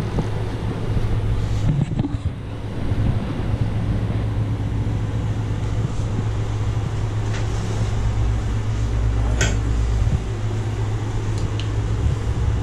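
Computer cooling fans running with a steady hum, broken by a couple of faint knocks.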